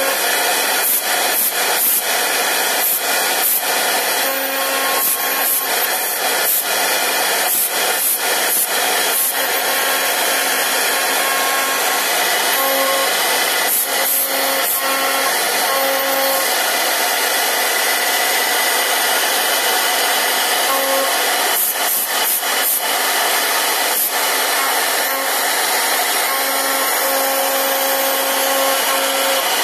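CNC router spindle milling letters into a wooden block: a steady loud whine and rasping cutting noise as the bit works through the wood. A tone in the whine comes and goes as the cut changes, and there is a crackle of chips in the first half.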